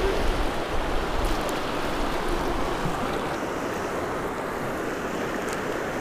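Fast, shallow mountain river rushing over rocks in a steady wash.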